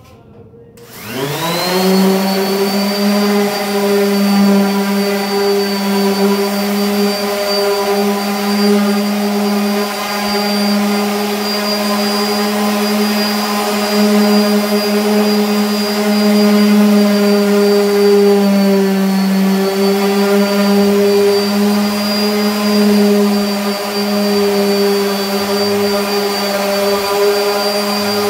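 DeWalt 5-inch orbital palm sander switched on about a second in, spinning up with a quick rising whine, then running steadily as it sands a wooden bench top with fine 220-grit paper.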